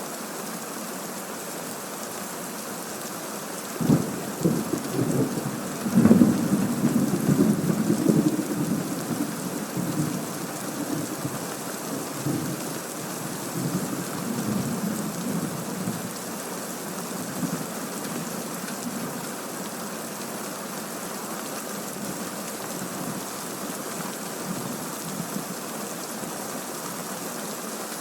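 Thunderstorm recording: steady heavy rain with a sharp thunder crack about four seconds in, followed by a long rolling rumble of thunder that peaks about two seconds later and slowly dies away.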